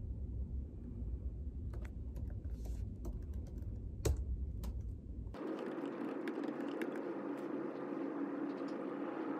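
Typing on a laptop keyboard, sparse key clicks over a low room rumble. About five seconds in the sound changes abruptly, and the typing goes on with closer-spaced clicks over a steady background noise.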